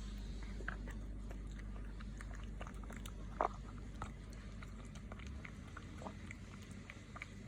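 Cat eating its food: irregular small chewing and biting clicks, with one louder click about three and a half seconds in, over a steady low hum.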